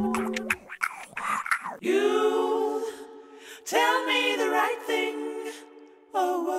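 Music in a breakdown: the beat and bass drop out early on, leaving long held vocal notes in a few phrases, with short pauses between them.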